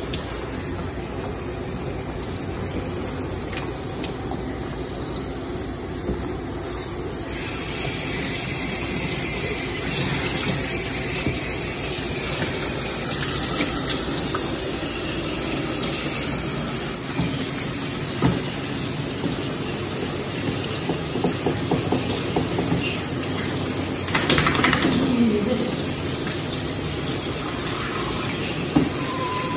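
Water spraying steadily from a handheld hose sprayer and splashing over a wet dog into a plastic tub, a little louder from about seven seconds in, with a few short knocks.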